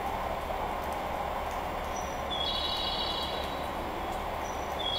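JR West 419 series electric train drawing slowly into the platform with a steady rumble. A high-pitched tone, led by a brief higher note, sounds twice about two and a half seconds apart.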